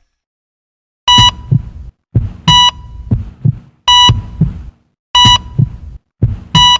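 Heartbeat sound effect with a sharp electronic beep on each beat: a beep followed by a low double thump, repeating about once a second, five times, starting about a second in.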